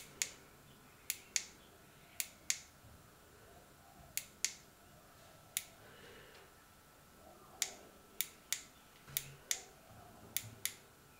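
IronHorse rechargeable torch's push-button switch clicking, about sixteen sharp clicks, mostly in quick press-and-release pairs with pauses between, as the torch is switched on and through its light modes.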